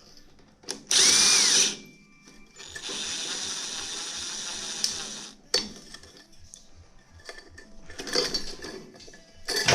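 Power drill driving a socket to loosen a clamp screw on the fan mount: a short loud burst about a second in, then a steady run of about three seconds, followed by scattered metallic clicks and knocks.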